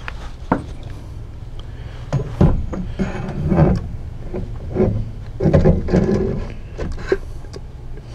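A 14 bolt full-floater hub and disc brake rotor being worked by hand onto its gear-oiled spindle: irregular knocks and scrapes of metal on metal as it slides on.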